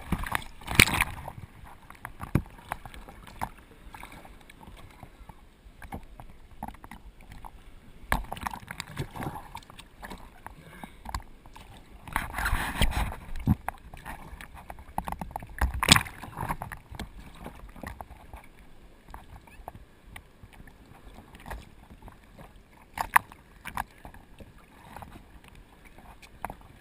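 Seawater sloshing and splashing in the surf, with irregular surges as waves break and occasional knocks.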